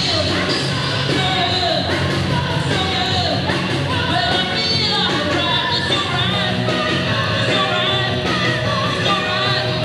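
Live rock band playing with a singer, loud and continuous; a long held note comes in about six seconds in.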